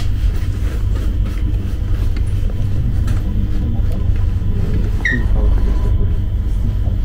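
Passenger train running with a steady low rumble, and a brief high squeak about five seconds in.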